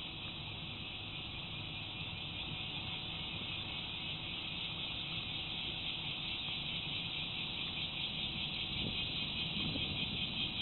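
Steady high-pitched insect chorus, a continuous shrill buzz that grows slightly louder toward the end, over a low background rumble.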